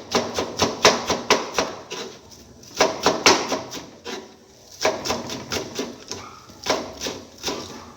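Kitchen knife chopping scallions on a cutting board: quick runs of sharp taps, several a second, in four bursts with short pauses between.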